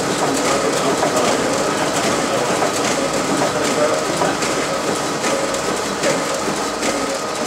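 RISO ComColor 9050 high-speed inkjet printer, with its high-capacity feeder and finisher, running a print job as sheets feed through: a steady mechanical running noise with a constant tone and light clicks.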